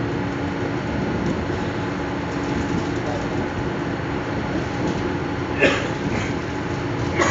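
Commuter train running along the track, heard from inside the carriage: a steady rumble of wheels on rails with a low steady hum, and two sharp clacks near the end.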